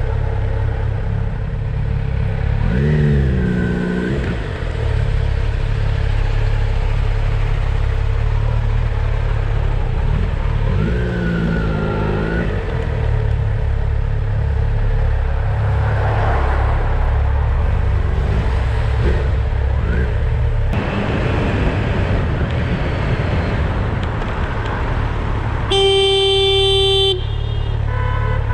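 Motorcycle riding in traffic: a steady low engine-and-road rumble, with two brief rises and falls in engine pitch in the first half. Near the end a vehicle horn sounds once, a steady blast of a little over a second.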